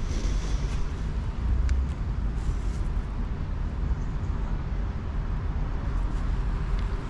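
Outdoor town ambience: a steady low rumble with a few faint clicks and scuffs.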